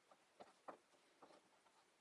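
Knife slicing a cucumber, the blade tapping faintly on a cutting board three times.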